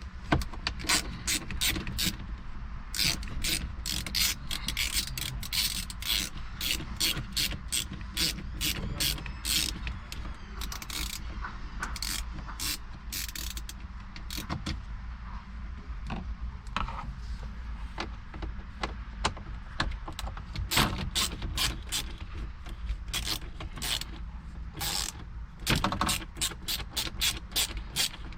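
Hand driver with a T20 Torx bit ratcheting in quick runs of sharp clicks as it backs out the screws holding a Volkswagen radio unit in the dash.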